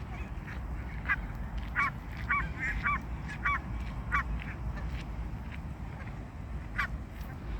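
Bird calls: a run of short honking calls about every half second from about a second in, then one more near the end, over a steady low background rumble.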